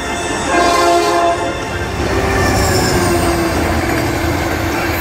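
Diesel locomotive horn sounding two blasts, a short one and then a longer one about a second later, over the steady rumble and wheel clatter of a passing passenger train.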